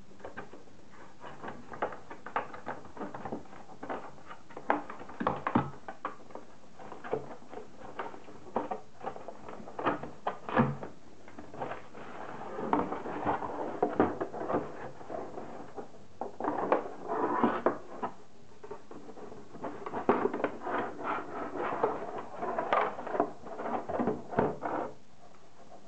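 Headset packaging being handled and taken apart by hand: a long, irregular run of clicks and taps, with stretches of rustling.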